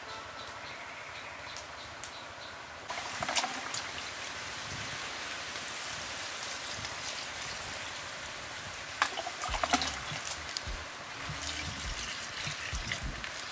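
Water poured from a metal pot in a thin steady stream into a plastic basin of crickets, washing them; the trickle starts about three seconds in, with a few brief clatters around the middle.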